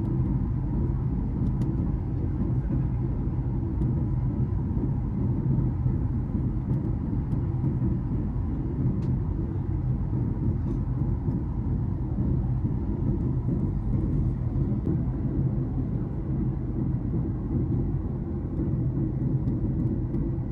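Steady low rumble of engine and airflow noise heard inside the economy cabin of a Boeing 737 MAX 8, with a faint steady hum running through it.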